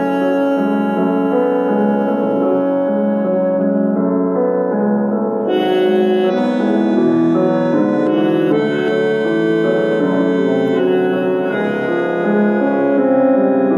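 A 144-tone bandoneon played solo: sustained reed chords with a melody moving over them. About five and a half seconds in, higher, brighter notes join.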